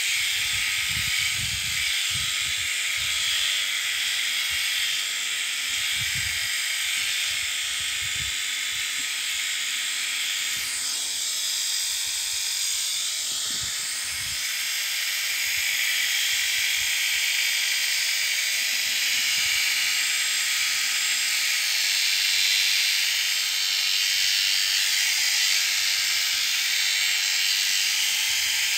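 Electric sheep-shearing handpiece running steadily as its comb and cutter work through a ram lamb's fleece, a continuous high buzz whose pitch dips and recovers briefly about halfway through. Low bumps of handling come through in the first few seconds.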